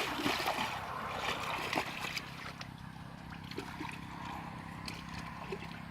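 Water splashing and sloshing, with sharp splashes in the first two seconds, then settling. A steady low hum runs underneath.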